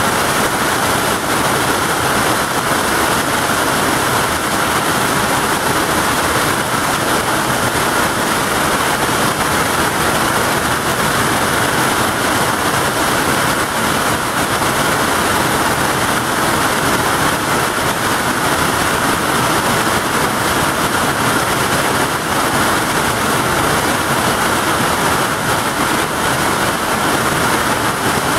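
Heavy hail and rain pelting down onto the ground and a plastic water tank, a loud, steady, unbroken din.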